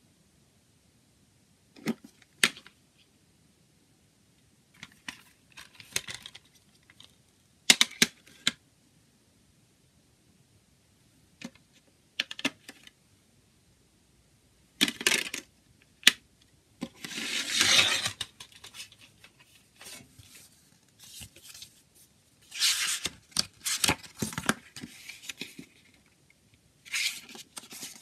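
Plastic CD jewel case being handled and opened: sharp plastic clicks and snaps in short bursts with quiet gaps, then the paper booklet sliding out and its pages rustling as they are turned, the longest rustle coming a little past the middle.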